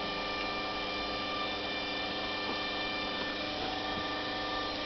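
A steady electrical hum with several faint high-pitched whining tones, unchanging throughout.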